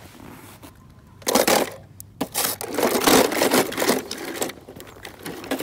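Crunching, scraping handling noise in two bursts, a short one about a second in and a longer one from about two and a half to four and a half seconds, with scattered clicks.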